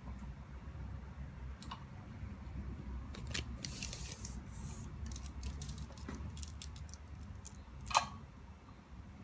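Retractable tape measure being drawn out and handled: a short scraping hiss, then a run of light clicks, and one sharper click near the end.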